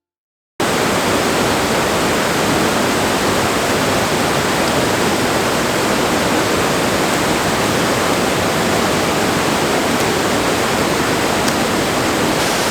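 Sunburst Falls waterfall pouring steadily: a loud, even rush of falling water that cuts in suddenly about half a second in.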